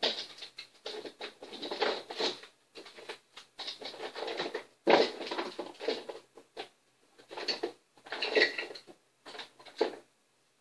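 Someone rummaging through a chest of small plastic toy figures: irregular rustling, scraping and clattering, loudest about five seconds in and again near eight seconds.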